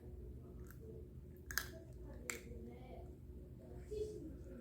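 Two short, sharp clicks, about a second and a half and two and a quarter seconds in, with a softer one near the end, over a faint low murmur.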